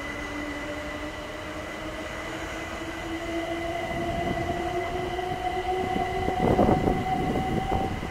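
Southern multiple-unit passenger train pulling away and gathering speed, with a whine that rises steadily in pitch. Near the end, louder knocking and clatter of its wheels over the track.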